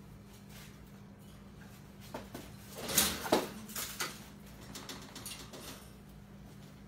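Young raccoons scrambling and wrestling in a wire cage: scattered clicks and scuffles, with a cluster of louder knocks and rattles about two to four seconds in.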